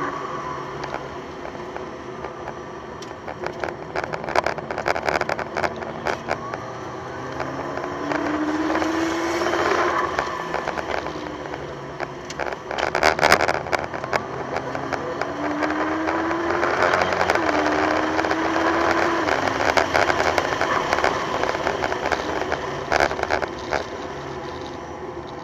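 McLaren P1's twin-turbo V8 heard from inside the cabin at track speed. Its note climbs in pitch as the car pulls through the gears and drops sharply at each upshift, about three times. Frequent sharp knocks and rattles sound over it.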